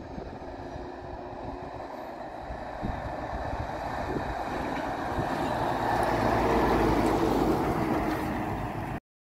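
Scania G490 8x2 truck's 13-litre straight-six diesel and tyres approaching and driving past close by. The sound grows steadily louder to a peak a couple of seconds before the end, then stops suddenly.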